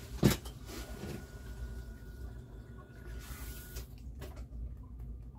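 Watery noise of a basement sump pump running in the background, with a sharp click of a small tool on metal about a quarter second in and another a little after four seconds.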